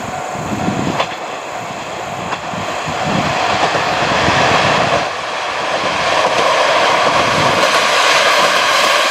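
'Hayato no Kaze' diesel railcars approaching on the Hisatsu Line: wheels knocking over rail joints, with a few sharp clicks, then a broad rushing noise that grows steadily louder from about halfway through as the train draws near.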